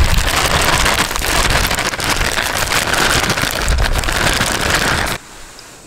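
Pancake batter frying on a griddle, sizzling steadily; the sizzle cuts off abruptly near the end.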